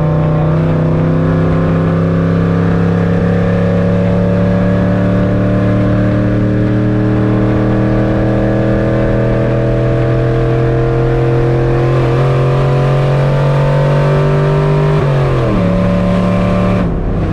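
LS V8 in a squarebody pickup, heard from inside the cab, pulling with its pitch climbing slowly and steadily, then dropping sharply about 15 seconds in as the transmission shifts up.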